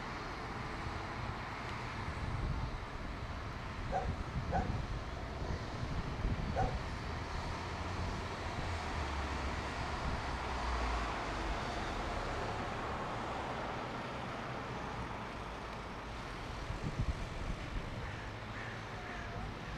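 Steady outdoor background hum with a low rumble that swells for a few seconds around the middle, and a few short animal calls about four, four and a half and six and a half seconds in.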